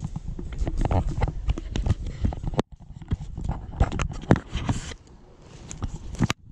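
Scuba gear being handled up close: a BC vest and aluminium-style tank knocking, bumping and scraping in quick irregular clicks and thumps, with rubbing of fabric and straps against the camera. The sound cuts out abruptly for a moment about two and a half seconds in.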